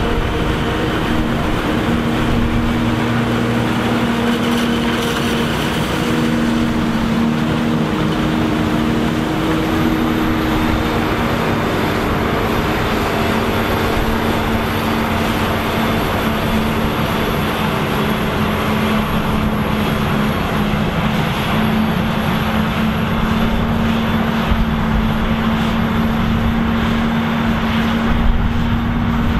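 Claas Jaguar forage harvester chopping maize alongside a tractor pulling a silage trailer through deep mud. Their diesel engines run steadily under heavy load with a constant droning hum.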